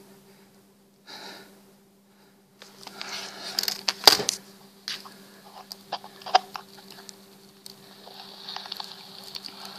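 Handheld camera handling noise: soft rustling and scattered sharp clicks, the loudest about four seconds in, over a steady low electrical hum.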